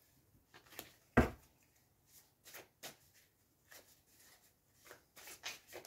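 Tarot cards handled and shuffled by hand: a scatter of light snaps and taps, with one louder knock about a second in and a quick run of snaps near the end.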